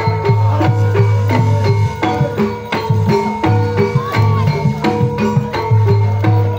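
Javanese gamelan music accompanying a jaranan (kuda lumping) horse dance: drums struck in a fast, steady pattern over repeating bronze metallophone notes and a deep gong-like tone that keeps coming back.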